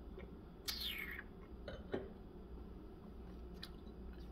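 Quiet mouth sounds of someone tasting wine: a short sucking slurp falling in pitch just under a second in, then a sharp lip smack about two seconds in.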